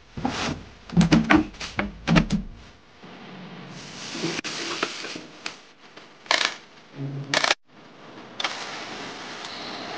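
A quick run of small plastic clicks and knocks, then a steady hiss broken by a few short rustles and knocks as a toilet-bubble cleaner is tipped into the toilet bowl and foams up.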